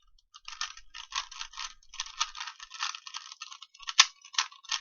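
3x3 Rubik's Cube being turned rapidly by hand during a speed solve: a quick, irregular run of plastic clicks and clacks as the layers rotate. It starts after a brief pause, and one sharper click comes about four seconds in.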